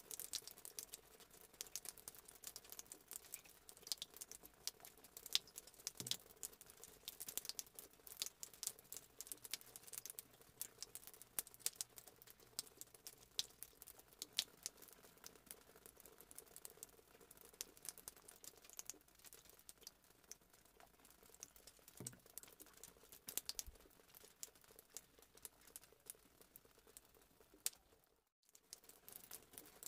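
Water simmering in a metal pot around a sealed plastic cup of tea: faint, irregular small crackles and pops over a low steady hum.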